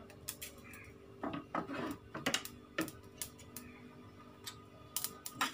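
Cumin seeds dry-roasting in a steel pot: sparse, irregular crackles and small clicks as the seeds heat, with a faint steady hum underneath.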